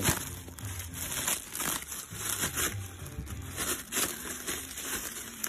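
Clear plastic wrapping around printed circuit boards crinkling and rustling in irregular bursts as the boards are handled.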